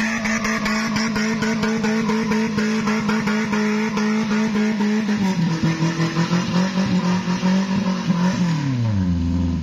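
Small pickup truck's engine labouring at high, steady revs as it climbs a slippery mud track, over a crackle of many small clicks. About halfway the engine note drops a step, and near the end the revs fall away.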